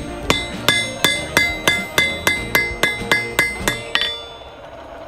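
Hammer striking hot metal on an anvil in a steady rhythm of about three ringing blows a second, stopping about four seconds in.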